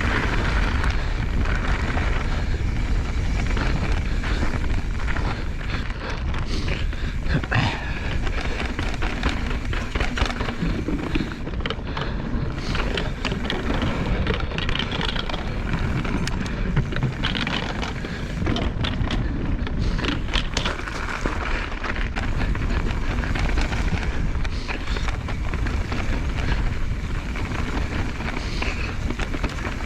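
Mountain bike ridden fast down a dirt trail: tyres rolling over the ground with frequent rattles and knocks from the bike, and wind rushing over the microphone.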